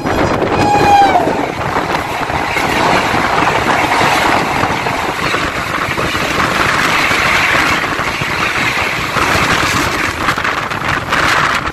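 Two trains passing each other at speed, heard from the open door of one of them: a brief horn from the oncoming electric locomotive, falling in pitch, about a second in, then the steady rush and rattle of its passenger coaches sweeping past close by.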